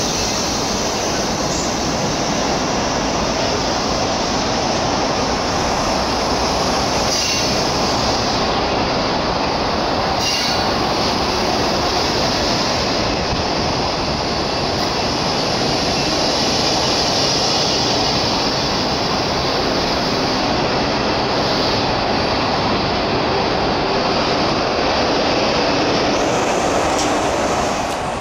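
A long rake of locomotive-hauled passenger coaches passing without stopping: a steady rush of wheel and rail noise, with a couple of sharp clicks about seven and ten seconds in. The noise drops off slightly as the last coach goes by near the end.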